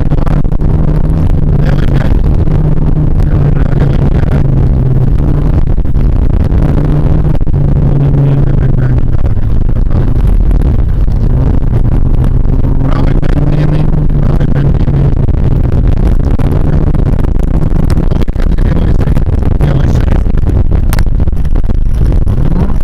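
VAZ 2114's four-cylinder engine running hard, heard from inside the car while driving fast on a dirt track; the engine note climbs and drops several times as the speed changes. Rough road noise with scattered knocks runs under it.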